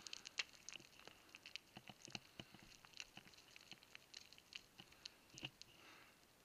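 Faint, irregular clicks and scrapes of a climber downclimbing loose rock, several a second, thinning out near the end.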